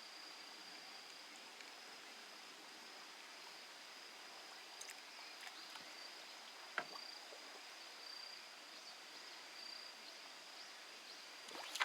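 Faint outdoor ambience: an insect singing one steady high-pitched note over a soft hiss, with a few small clicks about halfway through.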